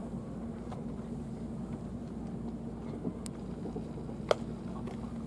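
Steady ballpark background noise with a constant low hum, and one sharp crack about four seconds in, with a fainter click a second before it.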